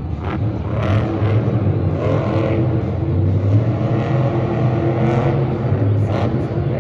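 Monster truck engine running loudly and revving, its pitch rising and falling several times.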